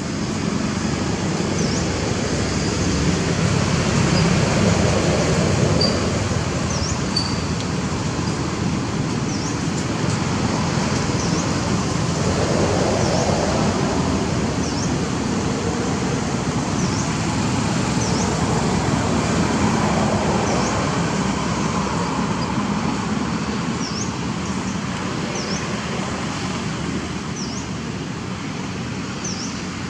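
Steady rumble of distant road traffic, swelling and easing every few seconds as vehicles pass. A short high chirp repeats about once a second over it.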